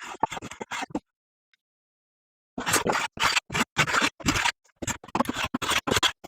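Hand pull saw cutting protruding wooden dowel ends flush with the board, in quick rasping back-and-forth strokes about four a second. The sawing stops for about a second and a half after the first second, then resumes.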